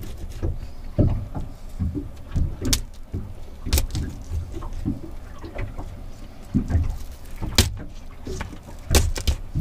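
Knife sawing and cracking through spiny lobster tail shells on a paper plate: irregular crunches and sharp cracks, some louder than others, over a low rumble.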